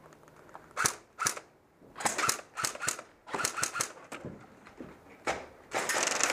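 Airsoft guns firing: single sharp shots and short strings of rapid shots, then a dense stretch of rapid full-auto fire near the end.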